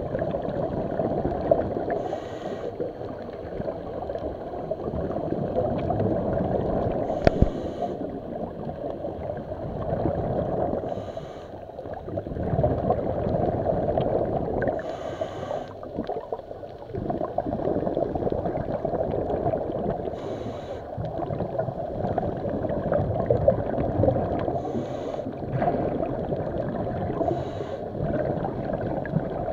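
Water sloshing and gurgling, muffled, with a short higher hiss every three to five seconds.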